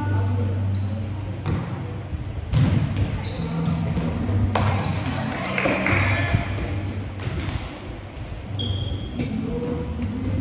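Volleyballs being struck and bouncing on a gym floor, several sharp smacks a few seconds apart, over background chatter of players in a large echoing hall.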